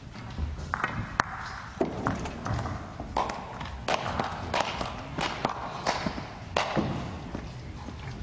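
Pool balls clicking and knocking against each other and the cushions, about ten sharp clacks spread unevenly, over the low hum of a large hall.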